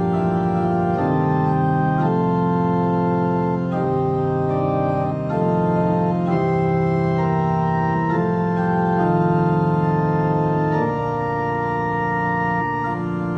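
Organ music: slow, sustained chords that change about every second, with no singing.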